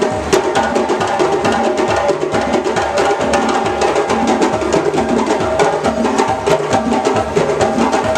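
West African djembe drum ensemble playing live: a dense, fast rhythm of hand-struck slaps and tones from several drums at once, keeping a steady drive.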